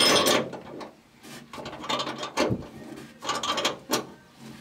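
Nut being snugged down with a wrench onto a threaded rod through a lock washer and flat washer: a few short, irregular metal clicks and rasps.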